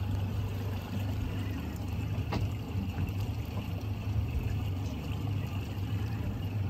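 Steady low rumble and water sloshing around a small boat at sea, with one sharp click a little over two seconds in.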